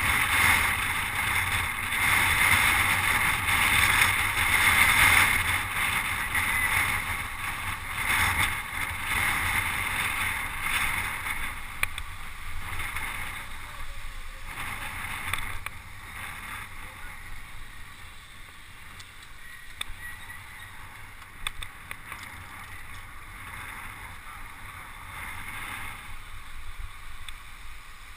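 Wind buffeting the microphone of a bicycle-mounted action camera riding in a group of road cyclists, with the hiss of tyres on tarmac. It is loud for the first half and eases off about halfway through.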